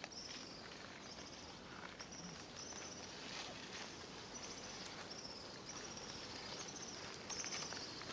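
Faint outdoor nature ambience: a steady noise bed with short, high chirping calls that fall in pitch, repeating about once a second.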